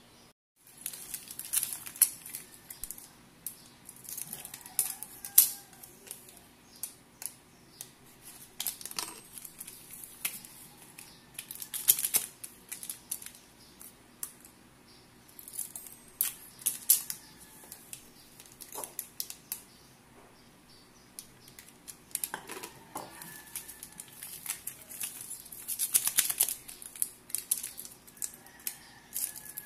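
Scissors snipping open plastic instant coffee stick sachets, with the packets crinkling as they are handled and the granules shaken out into a bowl. Clusters of short, crisp snips and rustles come every few seconds.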